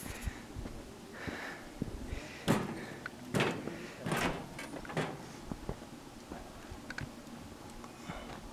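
Irregular knocks and rustles over a faint hiss. Four louder knocks come a little under a second apart in the middle, among smaller clicks.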